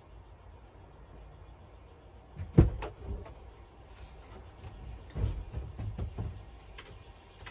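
A van door shutting with one sharp bang, then a few softer thuds and knocks a couple of seconds later, as someone gets into the van.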